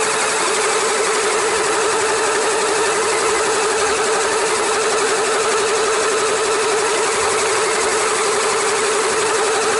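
Electric motors and gear train of a LEGO Technic RC tracked vehicle running steadily, heard close up from a camera mounted on the vehicle: a constant whine with a dense hiss behind it.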